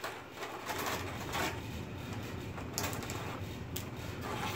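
Faint handling of a clear plastic blister tray and plastic model parts: a few soft rustles and light clicks over a low steady room noise.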